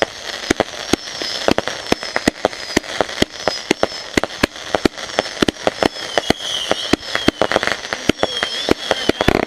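Consumer fireworks going off in rapid, irregular bangs and crackles, several a second, with high wavering whistles that grow stronger about six seconds in.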